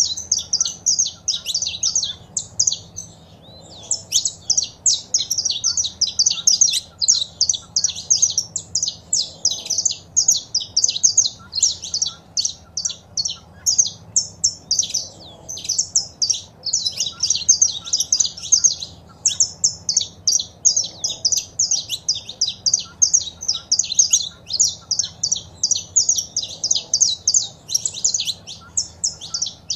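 Saffron finches calling and singing: a rapid, nearly continuous run of short, high chips that pauses briefly about three seconds in.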